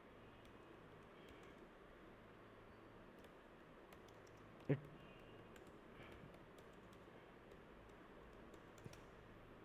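Faint computer keyboard typing: scattered soft key clicks, with one brief louder sound about halfway through.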